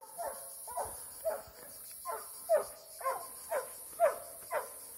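Plott hound barking on a steady bay, about two short barks a second, each dropping in pitch: the bay of a hound holding a wild boar at bay.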